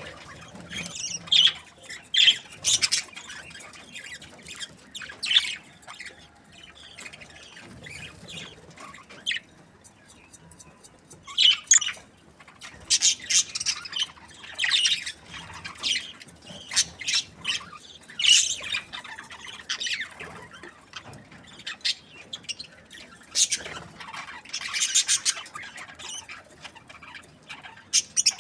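Budgerigars chirping: many short, high calls in irregular bunches, with a brief lull about ten seconds in.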